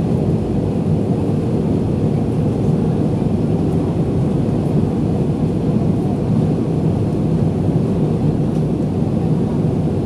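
Cabin noise inside an Airbus A320 descending on approach: a steady low roar of the engines and rushing air, with a steady hum underneath.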